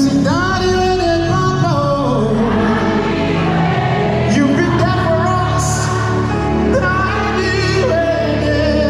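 Live gospel worship song: a lead singer holding long, wavering notes with backing singers over a band with drums and guitar.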